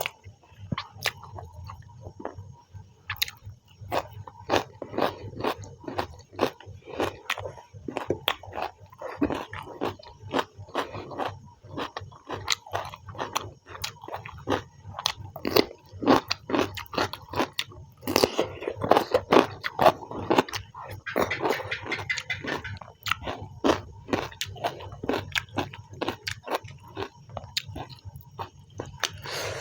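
Close-miked chewing and mouth sounds of a person eating chicken with rice, with many short irregular clicks and smacks.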